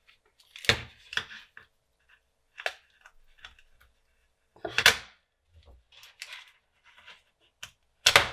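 Handling noise from a small metal USB-C dock casing being worked open with a thin prying tool: several sharp knocks and clicks, the loudest about a second in and about five seconds in, with faint ticks and scrapes between.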